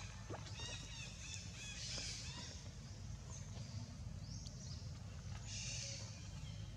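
Infant long-tailed macaque crying in thin, high-pitched calls, a run of them in the first couple of seconds and another short one near the end, over a steady low rumble of outdoor noise.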